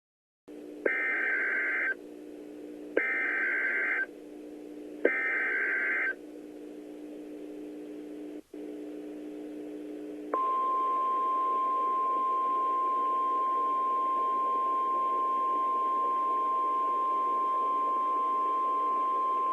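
Emergency Alert System SAME header: three one-second bursts of digital data tones about a second apart over a steady low hum. About ten seconds in, a long steady single-pitch weather radio warning alarm tone starts. Together they announce an incoming tornado warning.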